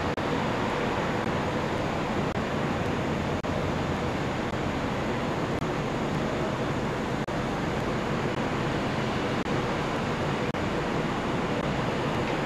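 Steady, even wash of distant city traffic noise heard from high above the streets, with no single vehicle standing out; it drops out for an instant three times.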